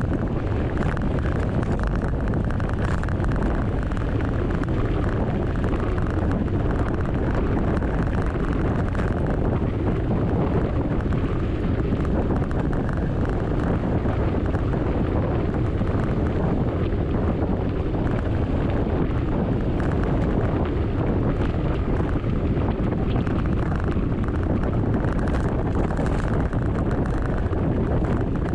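Steady wind rumble buffeting the microphone of a camera on a moving mountain bike.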